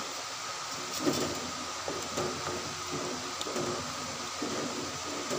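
A spatula stirring and scraping through pumpkin curry in an unglazed clay pot, soft repeated strokes about two a second, as the curry is fried down in oil. A steady low hum runs underneath.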